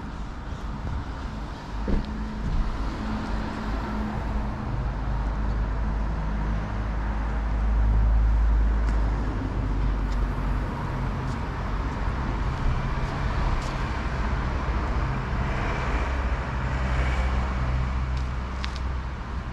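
Town street traffic: a continuous low rumble of car engines, swelling to its loudest about eight seconds in.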